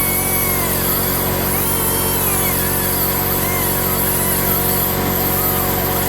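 Central Pneumatic 1/8" mini air die grinder running at speed as it cuts into a steel bolt, with a high whine whose pitch wavers up and down under load. A steady low machine hum runs underneath.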